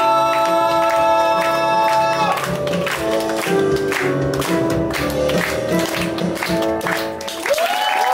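Several voices of a musical-theatre trio hold the final sung note together over a backing track, cutting off about two seconds in. The instrumental backing track with a steady beat plays on, and a held note slides up again near the end.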